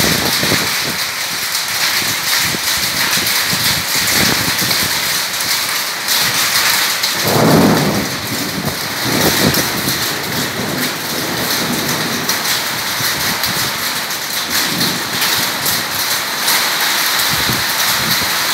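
Heavy rain pouring steadily onto a corrugated metal roof and the ground around it, a dense hiss that holds even throughout. About seven seconds in, a louder, lower surge swells for about a second and fades back.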